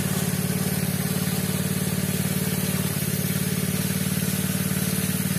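Small Robin petrol engine of a pepper-washing machine running steadily at an even speed.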